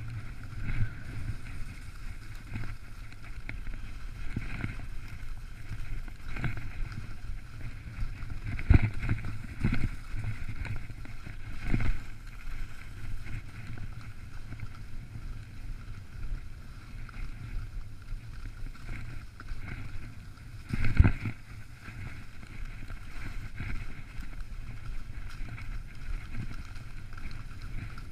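Steady wind rush buffeting the microphone of a ski tourer's action camera while moving over snow, with a hiss that fits skis on the snow. A few short thumps break through, the loudest about two-thirds of the way through.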